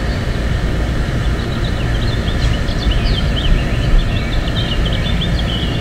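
Steady low rumble of wind on the microphone, with songbirds chirping in quick, short notes from about a second and a half in.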